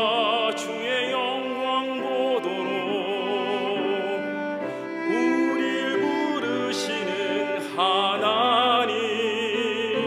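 A man singing a Korean hymn solo in a classical style with wide vibrato on long held notes, accompanied by a bowed cello.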